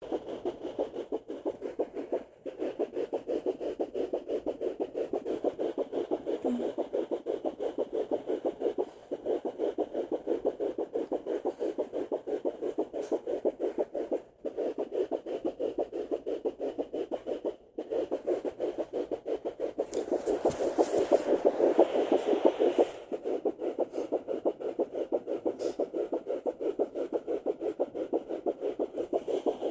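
Fetal heartbeat picked up by a Sonoline B handheld fetal doppler at 8 weeks 5 days: a fast, even run of pulses through the doppler's speaker. It breaks off briefly a few times, and a louder rubbing noise from the probe joins it for a couple of seconds past the middle.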